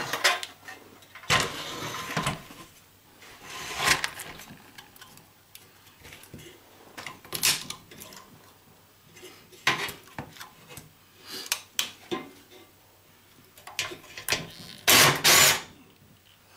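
Handling clatter from a steel stereo-receiver chassis and its transformer, with pliers working at a small circuit board mounted on the transformer: scattered clinks, knocks and short metal scrapes, with a louder scrape near the start and the loudest clatter near the end.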